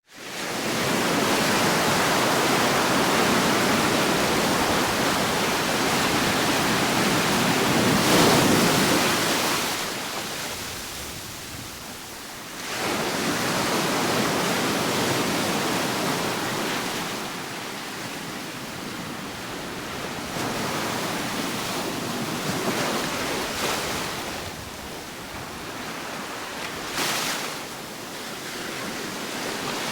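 Ocean waves washing on a shore: a continuous hissing wash that swells and ebbs, with a big wave breaking about eight seconds in and further surges about thirteen and twenty-seven seconds in.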